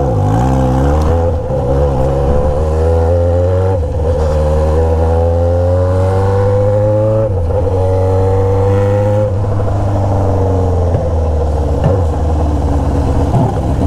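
Motorcycle engine accelerating through the gears: the pitch climbs in each gear and drops at upshifts about 4, 7 and 9 seconds in, then settles into a steady run.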